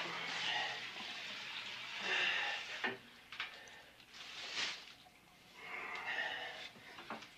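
Film sound effects of a body being cut up in a bathtub: wet splashing and sloshing that comes in about four bursts with quieter gaps between.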